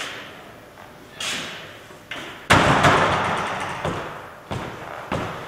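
A heavy wooden door slams shut with one loud bang that echoes and dies away through a large hall, after a couple of smaller knocks from the door. A steady run of footsteps follows.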